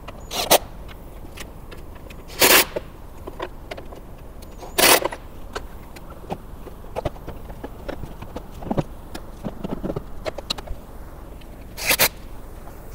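Cordless drill with a socket bit run in four short bursts, driving down the bolts of a car's engine air filter box lid, with light clicks and clatter of handling between the bursts.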